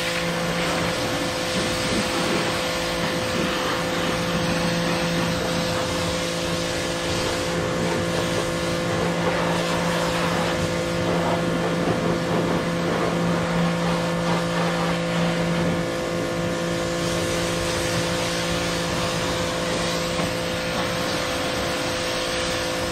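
Small pressure washer running steadily: the motor and pump give a constant hum under the hiss of the water jet. A lower hum note drops out about two-thirds of the way through.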